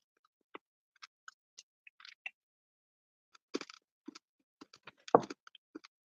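Irregular small clicks and taps, sparse at first and thicker in the second half, with one louder knock about five seconds in.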